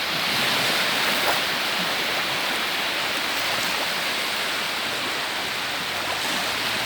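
Sea surf washing onto the beach: a steady rushing hiss that swells a little in the first second.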